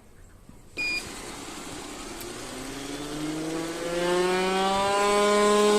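Cecotec Conga 1390 robot vacuum switching on with a short beep about a second in, then a whine that rises in pitch over several seconds and settles into a loud steady drone, like a plane about to land. The owner puts it down to the central brush roller motor, which has gone.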